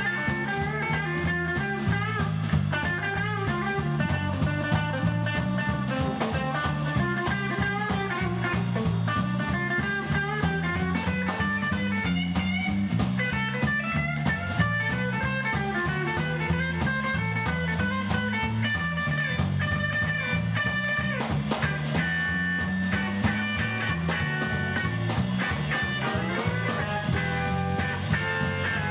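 Electric blues band playing: lead guitar lines with bent notes over a moving bass line and drums.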